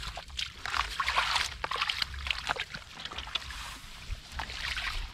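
Hands digging through wet mud and shallow water, with irregular sloshing and squelching.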